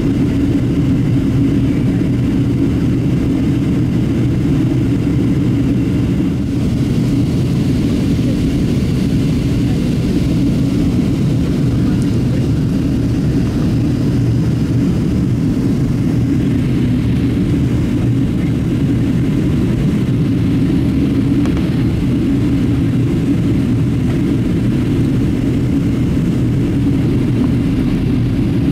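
Steady cabin noise of a Boeing 737-700 in descent, heard from a window seat: a constant low rumble of airflow and CFM56 engines with a hum running through it.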